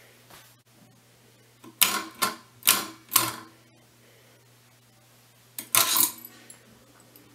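Sharp metallic clicks with a brief ringing after each, four within about a second and a half, then another quick cluster near the end as the spring-loaded centre spindle of a Webster-Chicago 346 record changer is worked by hand. A faint steady low hum sits underneath.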